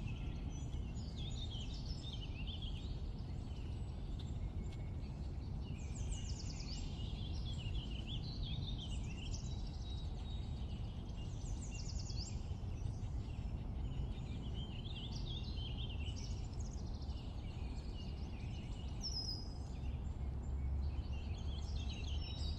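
Songbirds singing in short, repeated phrases of quick trills and warbles every few seconds, over a steady low background rumble.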